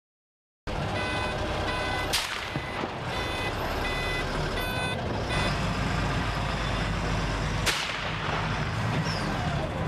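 A vehicle engine running steadily under a series of short, repeated electronic beeps. Two sharp gunshot cracks cut through, about two seconds in and again near eight seconds.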